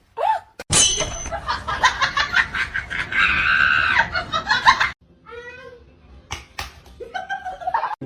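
People laughing, loud and lively for the first few seconds, then quieter chuckles near the end.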